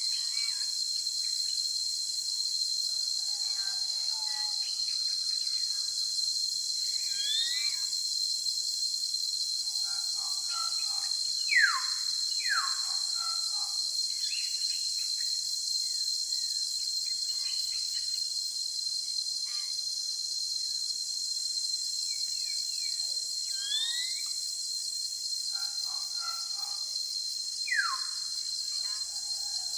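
Steady high-pitched drone of crickets or other insects, with birds calling over it: chirps, short rising notes, and a few loud whistles that slide downward, the loudest about a third of the way in and again near the end.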